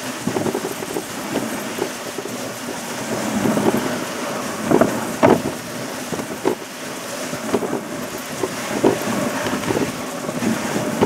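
Dog sled running over snow: a steady scraping hiss from the runners, broken by irregular knocks and rattles from the sled, the loudest a pair of knocks about halfway through.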